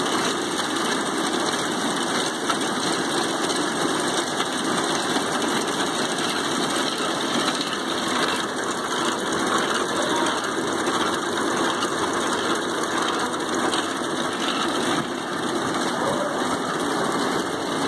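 Multi-spindle bobbin winder of a synthetic twine extrusion line running, many winding spindles turning at once: a steady, even machine whir.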